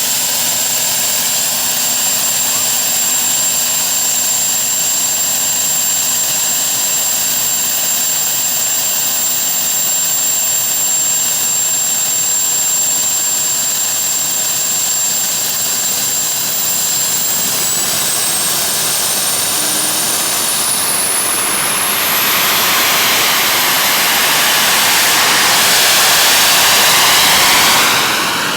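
Small jet engine of a homebuilt Cozy aircraft (about 800 lb of thrust) running, a loud roar with a thin high whine. Past the middle the whine climbs in pitch and the roar grows louder as the engine speeds up, then falls away near the end.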